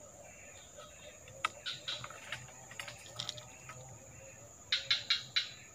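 Scattered light clicks and ticks from fishing tackle being handled, with a quick run of four sharper clicks near the end, over a steady high insect whine.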